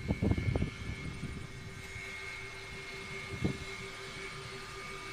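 A camera drone's propellers humming steadily with a high whine. During the first moment, loud wind buffets the microphone, then dies away.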